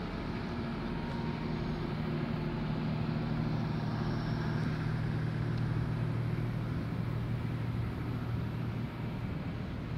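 Diesel locomotive engine running with a steady low drone while heritage passenger carriages roll slowly past. The drone grows a little louder a few seconds in.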